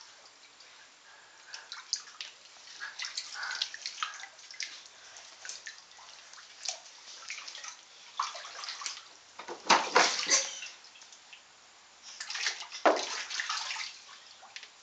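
Water sloshing and splashing in a small kiddie pool as a toddler moves and wades through it, in irregular bursts with a couple of louder splashes in the second half.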